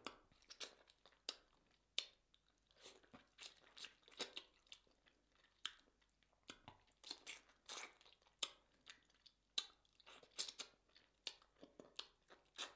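Close-miked wet chewing, lip-smacking and sucking of someone eating sauce-covered rotisserie chicken: sharp, irregular smacks several times a second.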